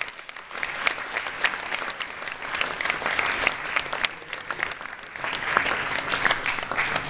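A large audience applauding: many hands clapping together in a steady patter.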